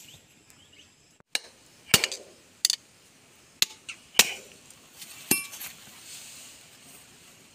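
A hammer strikes a metal drift set in the eye of a power steering cylinder's rod end: about six sharp, irregularly spaced metal-on-metal blows. The last blow rings briefly.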